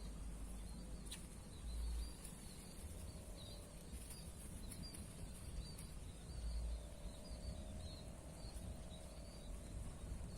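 Faint small-bird chirping: short, high calls repeated throughout over outdoor background noise, with a couple of brief low rumbles.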